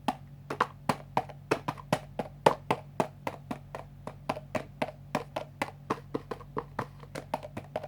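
Slime tapped and slapped rapidly with the fingers like a drum, making a quick run of sharp wet pops, about five or six a second.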